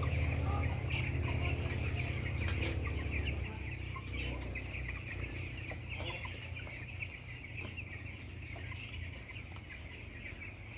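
A flock of young broiler chicks peeping continuously, many short high chirps overlapping. A low steady hum underneath fades down about three and a half seconds in.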